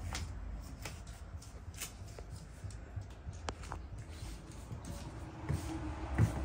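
Low steady room hum with scattered light clicks and knocks, and a few soft low thumps near the end: someone walking on a wooden floor and handling the phone.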